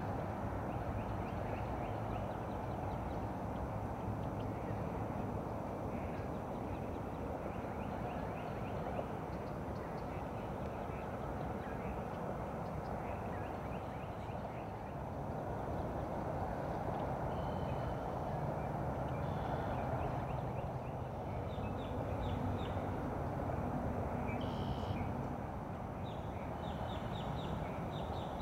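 Outdoor ambience: a steady hiss with scattered bursts of rapid, high-pitched chirping from small animals.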